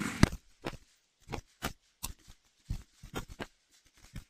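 Semi-automatic rifle fire from M4-style carbines on a firing range: about a dozen sharp shots at uneven intervals, from more than one shooter.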